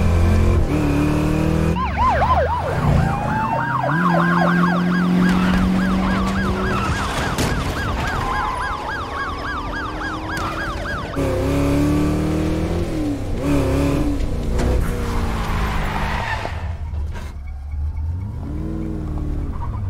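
Police sirens wailing in a fast up-and-down yelp from about two seconds in until about halfway, over car engines running. In the second half the engines rev, rising and falling in pitch.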